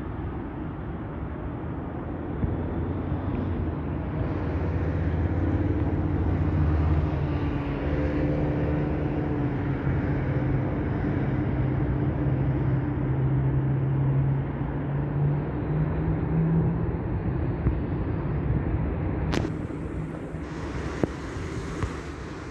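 A motor vehicle's engine running close by: a steady low rumble with a held hum. It grows louder about four seconds in and eases off near the end, with a single sharp click late on.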